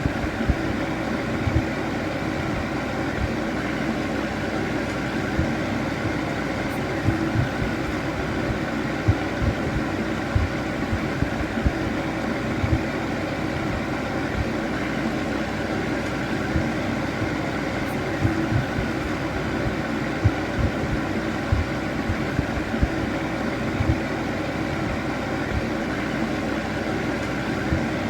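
Electric fan heater running steadily: a continuous whir of blown air with an even motor hum, broken by frequent irregular low thumps.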